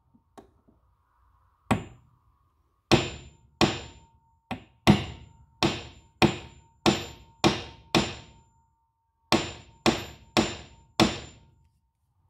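A small hammer strikes the steel rivet on the crank handle of a Dazey Sharpit knife sharpener about fourteen times, peening the rivet head over to hold the wooden knob. Each strike is a sharp metal tap with a brief ring, coming roughly every half second, with a short pause about two-thirds of the way through.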